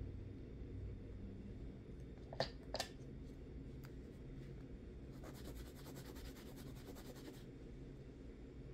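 Quiet handling of nail-stamping tools and polish bottles on a desk: two light clicks close together about two and a half seconds in, then a fine, rapid rasping lasting about two seconds.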